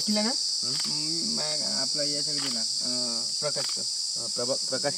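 Steady high-pitched drone of insects in dry forest, with people talking over it.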